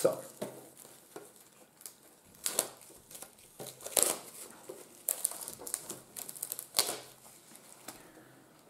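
Plastic shrink-wrap film being picked at and peeled off a packaged card, in separate sharp crinkles and crackles about a second apart, falling quiet near the end.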